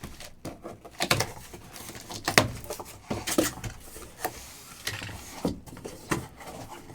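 Sealed trading-card boxes being handled and set down on a table: a string of short, irregular knocks and taps with handling noise between them.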